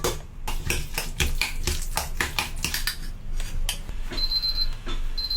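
Kitchen utensils knocking in a fast, even run of about five strokes a second, then two short high electronic beeps from a kitchen appliance near the end.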